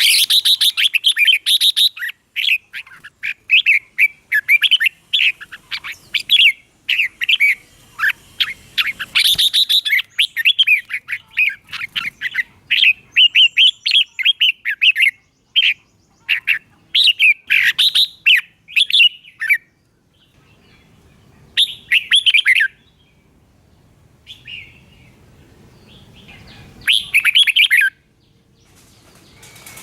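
Red-whiskered bulbul singing: quick, bright, warbling chirp phrases that come almost without pause for the first two-thirds, then only in a few short bursts with gaps between.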